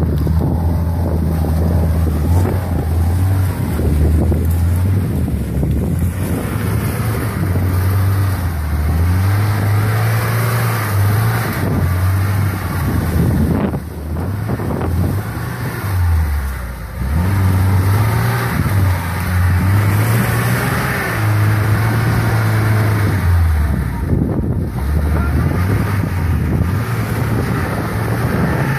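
Lada Niva's engine revving up and down again and again, under load as the 4x4 tries to drive itself out of a ditch it is stuck in. Wind on the microphone.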